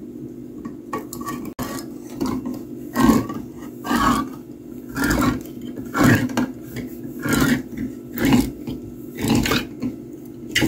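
Hand-held manual can opener cutting around the lid of a metal food can. Each turn of the butterfly key gives a crunching grind, about one turn a second, after a few lighter clicks at the start.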